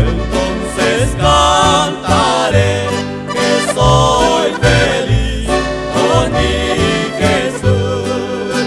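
A male vocal trio singing a Spanish-language gospel song in harmony over an instrumental backing with bass and a steady beat.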